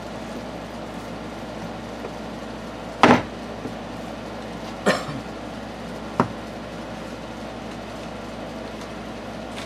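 Wooden soap loaf molds full of fresh cold-process soap batter tapped down on the counter: three separate knocks about three, five and six seconds in, the first the loudest. This is the usual way to settle the batter and knock out air bubbles.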